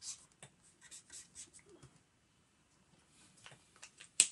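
Felt-tip marker scratching over sketchbook paper in a run of short, quick colouring strokes, then a sharp click near the end.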